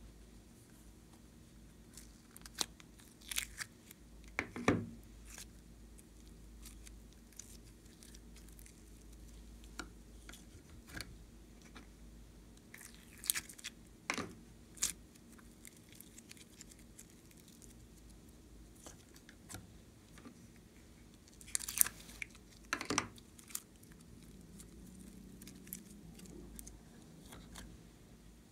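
Slime and soft clay being handled by hand: scattered sticky clicks and peeling pops, bunched into a few clusters, over a faint steady hum.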